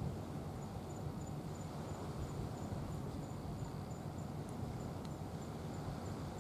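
Outdoor ambience: a steady low rumble, with a faint, high insect chirp repeated about three times a second.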